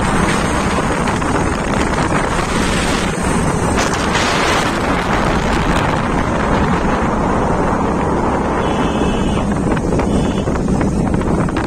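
Wind rushing over the microphone of a phone filming from a moving motorbike, with the engine's steady low drone underneath.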